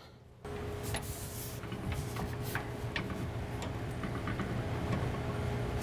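Radial arm saw, motor off, being lowered by hand with its elevating crank: scattered light clicks and rattles over a steady low hum.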